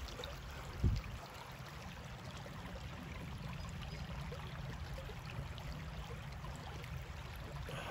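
Shallow creek water flowing steadily over rocks, with a brief low thump about a second in.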